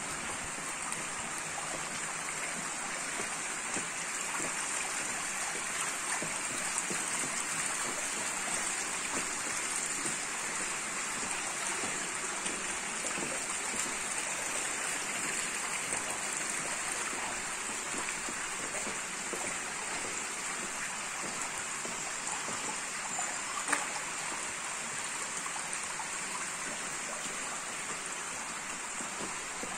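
Rainwater running steadily down a stone drainage gutter beside a cobbled lane: a continuous, even rush of flowing water, with one small tap about three-quarters of the way through.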